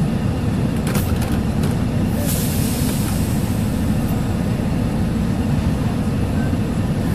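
Truck's diesel engine idling with a steady low rumble, heard from inside the cab. A few light clicks come about a second in, and a short hiss about two seconds in.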